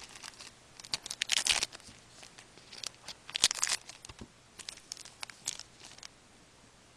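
Hockey card pack wrapper being torn open and crinkled, in two louder bursts about a second and a half and three and a half seconds in, with lighter crackles of cards being handled in between.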